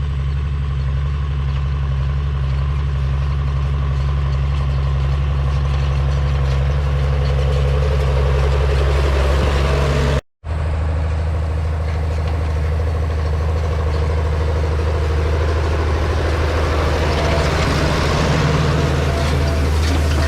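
Tractor engine running steadily; the sound cuts out for a split second about halfway through.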